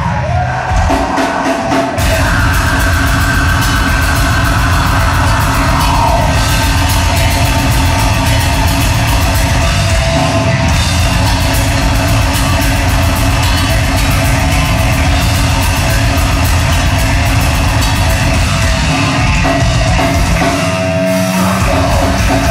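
Heavy metal band playing live, heard loud in the hall: distorted guitars, bass and fast, dense drumming. The full band comes in harder about two seconds in.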